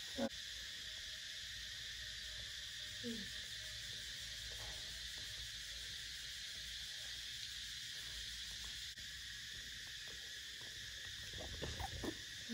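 Steady high-pitched chorus of crickets or similar insects. A faint short falling squeak comes about three seconds in, and a few soft clicks and rustles near the end.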